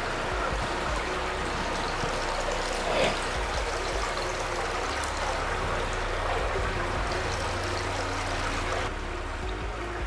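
Flowing stream water, a steady rushing, with a brief knock about three seconds in and some wind rumble on the microphone.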